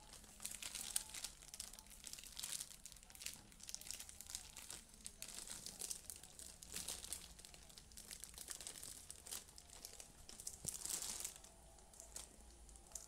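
Clear plastic bag around a pair of boots crinkling as hands press and turn the package, in irregular bursts that die down near the end.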